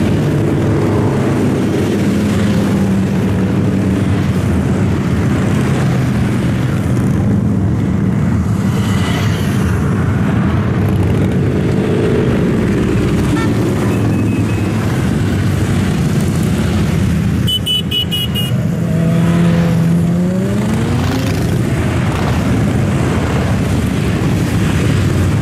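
Motorcycles and cars streaming past on the road, several engines running at once in a steady drone. Near the end one engine revs, its pitch rising.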